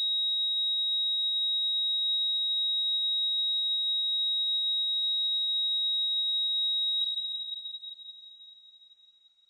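Patient monitor's flatline tone, the signal for no detected heartbeat: one steady high-pitched beep held for about seven seconds, then fading away.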